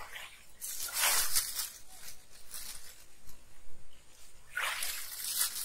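Handfuls of powdered alum tossed into an open well, heard twice as a short rustling, pattering rush as the powder scatters down. It is the first step in purifying contaminated well water.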